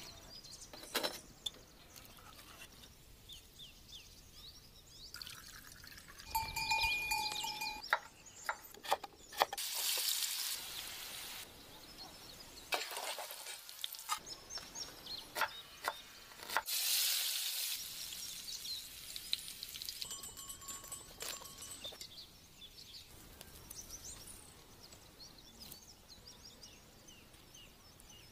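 Food-preparation sounds: scattered clicks and clinks of a metal ladle and aluminium pot, with two short bursts of hiss about ten and seventeen seconds in.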